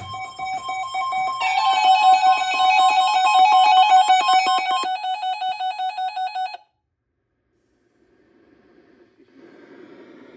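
Electronic emergency alert tone for a severe thunderstorm warning: two steady ringing pitches that pulse about five times a second and grow fuller after about a second, then cut off abruptly partway through. A faint rushing noise builds near the end.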